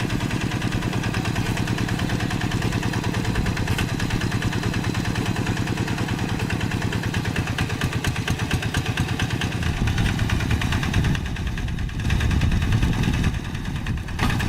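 Two-wheel hand tractor's single-cylinder diesel engine running steadily with a fast, even chug while plowing deep paddy mud. In the last few seconds the sound gets heavier and uneven, dipping and surging.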